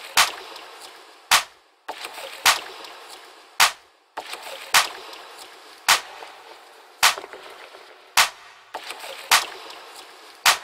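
Sharp claps in a slow, steady rhythm, ten of them a little over a second apart, each trailing off in a reverberant wash.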